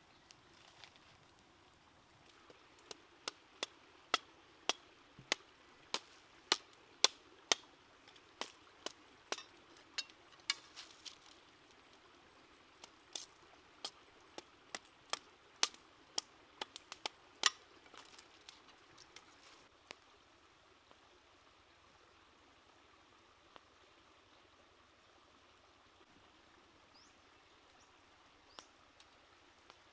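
Machete blade striking and splitting a bamboo stick on a rock: a run of sharp knocks, about two a second, that stops about twenty seconds in. A faint stream runs underneath.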